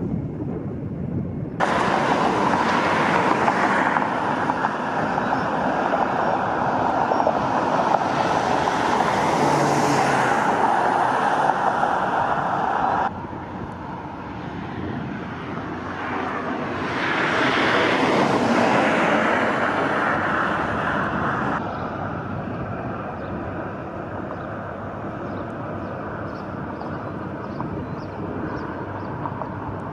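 Outdoor traffic noise: a steady rush of passing vehicles that swells and fades, with abrupt jumps in level a few times.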